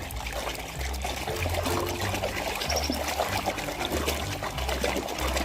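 Water pouring and trickling over a muddy plastic toy as it is rinsed and scrubbed by hand.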